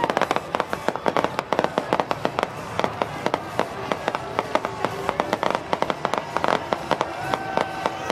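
Fireworks going off in a dense barrage: rapid crackling and popping bursts, many a second, with a few held tones near the end.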